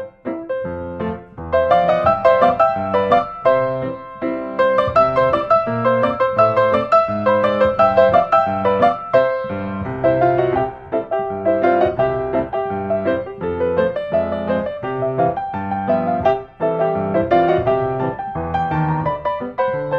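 Background piano music: a steady stream of quick, short notes with chords underneath.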